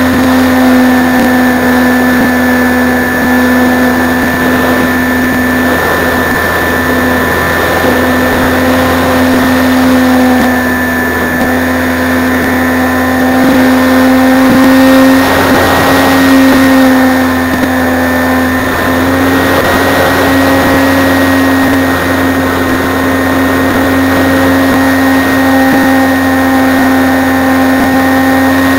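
RC model airplane's motor and propeller running at a nearly steady throttle, a loud, even buzz with one strong held pitch, heard close up from a camera on the airframe with wind rumble on the microphone.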